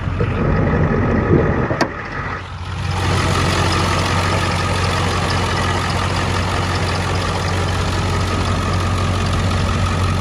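Ford 7.3L Power Stroke V8 turbo-diesel idling steadily. A single sharp click comes about two seconds in as the hood is released. From about three seconds the idle is louder and fuller, with the engine bay opened up.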